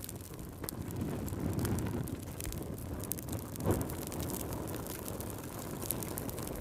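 Wood fire burning with a low rumble of flames and many small sharp crackles, with one louder pop near the middle.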